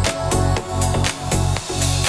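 Electronic dance music instrumental: a pulsing beat about twice a second over heavy bass and sustained synth chords, with no vocals.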